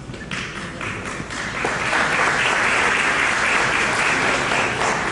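A large audience applauding, the clapping swelling about two seconds in and easing off near the end.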